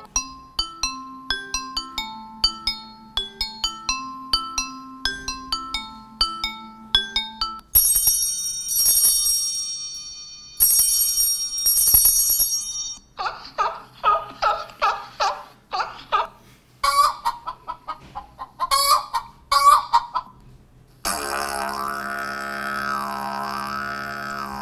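Google Pixel 3a XL ringtones playing one after another. A plinking mallet-like melody gives way about eight seconds in to bright, high repeated chimes, then a run of short tones. Near the end comes a sustained droning tone.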